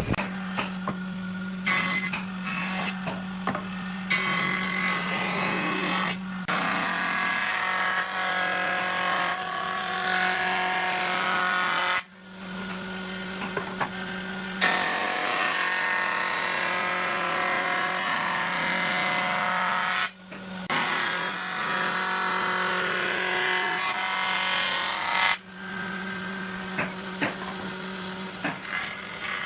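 Electric power tool motor running steadily while working wood, with a steady hum under the noise of the cut. It stops briefly several times and starts again.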